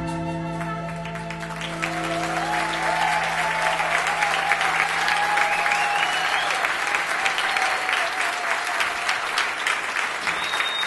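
Audience applauding as the band's last held chord fades out over the first few seconds. A few wavering high tones ride over the clapping.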